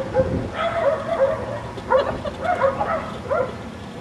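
A series of short pitched animal calls, several in quick succession and each bending in pitch.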